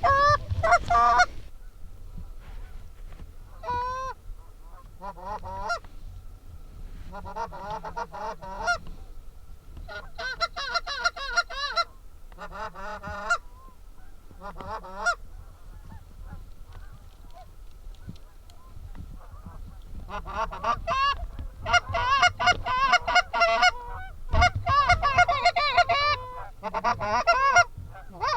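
Goose calls blown by hunters: rapid, wavering honks and clucks in short bursts, loud and close, with a dense run of calling over the last eight seconds.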